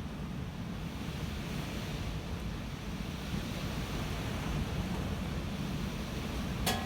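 Storm-force wind gusting and buffeting the microphone, a steady low rushing roar with no let-up. A brief sharp click sounds near the end.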